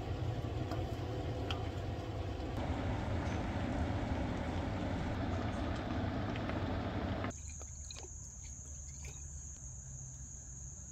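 Steady kitchen noise with a low hum as a mushroom curry bubbles in a wok on the stove. About seven seconds in it cuts off and gives way to insects trilling outdoors, a steady high thin tone with a few light clicks.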